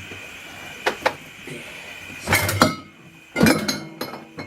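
Clinks and knocks of glass and hard objects being handled: two light taps about a second in, then two louder clattering bursts with a short ring after them, over a faint steady high whine.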